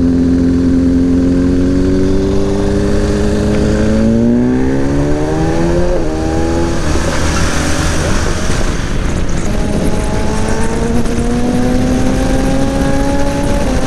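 BMW motorcycle engine pulling up through the gears: its pitch climbs, drops at a shift about six seconds in, climbs again slowly and drops at another shift near the end. Heavy wind rumble on the microphone throughout.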